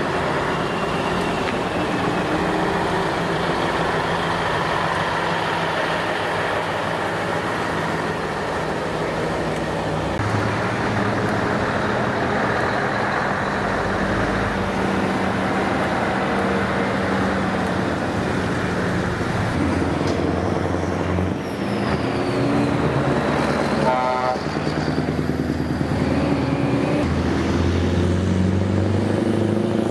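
Scania V8 diesel truck engines running, the engine note shifting in pitch a couple of times.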